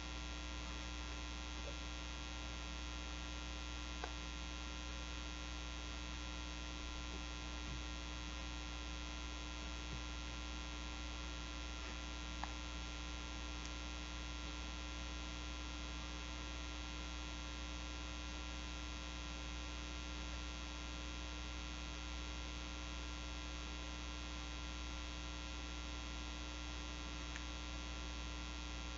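Steady electrical hum with a dense stack of overtones, unchanging throughout, with a few faint soft ticks now and then.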